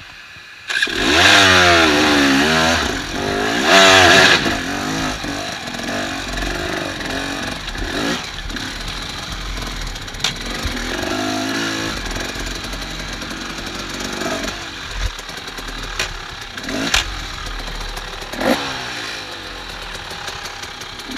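A KTM 300 XC-W two-stroke enduro motorcycle engine comes in suddenly under a second in and revs hard and unevenly for the first few seconds. It then runs on at lower, steadier revs, with several sharp knocks along the way.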